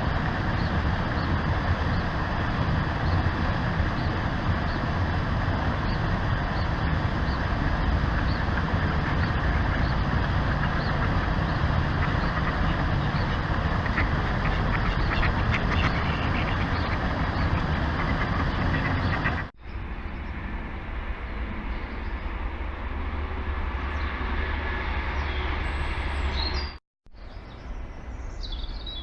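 Ducks quacking over a steady rushing background noise, with faint high chirps. The sound cuts abruptly to a quieter stretch about two-thirds in, and again near the end.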